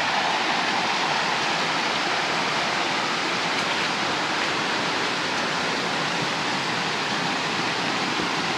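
A small mountain creek cascading over rocks, a steady rush of water.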